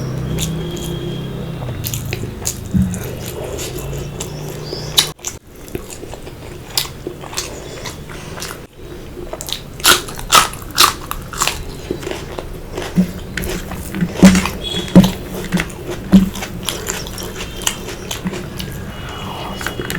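Close-miked eating: a person biting and chewing food, with many sharp, short crunchy clicks, most frequent and loudest from about halfway through.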